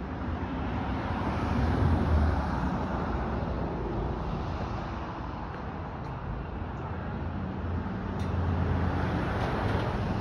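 Road traffic passing: a steady rush of tyres and engines with a low rumble, swelling about two seconds in and again near the end as cars go by.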